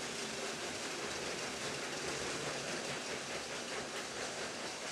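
Motorised LEGO trains running on plastic track: a steady rattle of wheels and carriages rolling along.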